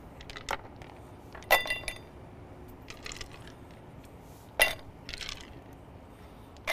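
Ice cubes dropped by hand into a cup, one at a time, each landing with a sharp clink. About half a dozen clinks are spread a second or so apart, and one about a second and a half in rings briefly.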